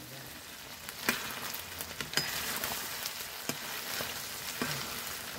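Chicken curry sizzling in an iron wok, with a long-handled metal ladle stirring it and knocking sharply against the pan about four times, roughly once a second.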